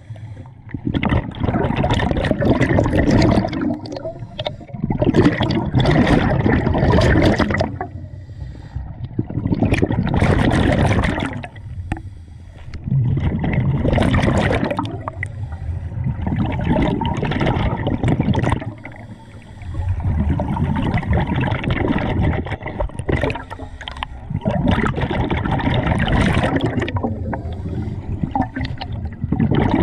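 Scuba regulator exhaust bubbles gurgling and rushing, recorded underwater, in bursts of two to three seconds that come about every four seconds in time with the diver's breathing, with quieter gaps between.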